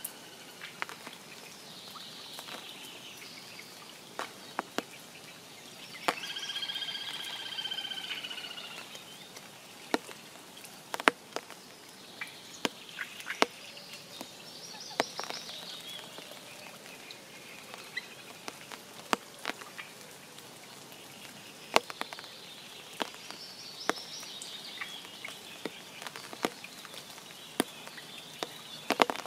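Spring rain at a forest pond: scattered drops land as sharp taps, while birds sing in short phrases in the background. About six seconds in, a frog gives a pulsed trill lasting about two and a half seconds, the loudest sound.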